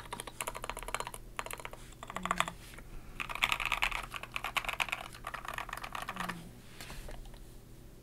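Fast typing on a Wuque Ikki 68 Aurora custom mechanical keyboard with an aluminium plate, lubed and filmed JWK Quartz switches and SA profile keycaps. The keystrokes come in quick runs of clicks separated by short pauses. The run in the middle is the loudest, and the typing grows fainter near the end.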